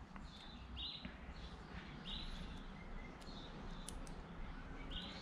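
Faint, short high chirps repeating about once a second, like background birdsong. A couple of small clicks about four seconds in come from hands picking the seals off a brake master-cylinder piston.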